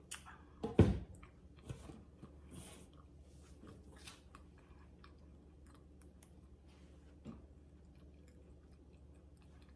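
Close-miked chewing and mouth sounds, with one sharp knock about a second in and a few lighter clicks.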